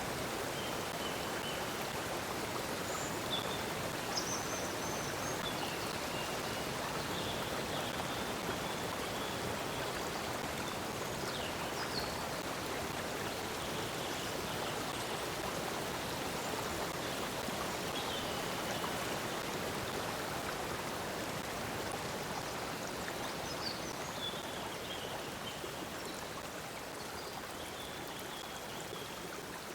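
Stream of water flowing steadily, with short high bird chirps and whistles scattered through.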